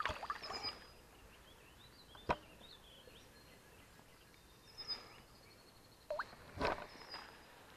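Pond water splashing and sloshing as a largemouth bass is held in the shallows by the lip and let go, with a sharp slap about two seconds in and a louder splash near the end. Faint high bird chirps come and go.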